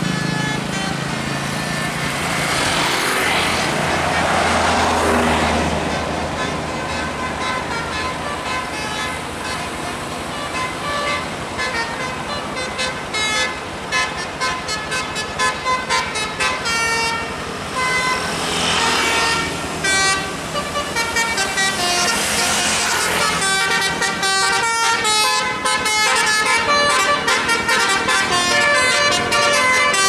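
Tour bus telolet horn, a multi-tone musical air horn, playing a quick tune of short stepped notes over the noise of passing motorcycles and traffic. The notes come thick from about twelve seconds in and pile up faster near the end.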